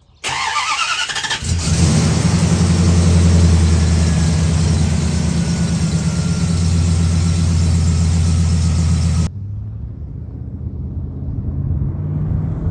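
Dodge Durango's 5.9L Magnum V8 cranked by the starter for about a second, then catching and running at a steady fast idle. About nine seconds in the sound drops abruptly to a quieter, duller running.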